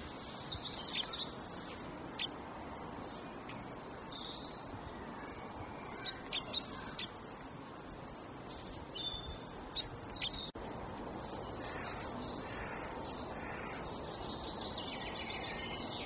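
Small songbirds chirping: scattered short, high chirps and calls over a steady background hiss, which changes abruptly about ten and a half seconds in.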